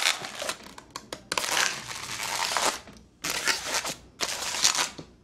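Inflated latex modeling balloon being rubbed and twisted in the hands while a loop twist is made: a scratchy crinkling rub that comes in several stretches with short breaks.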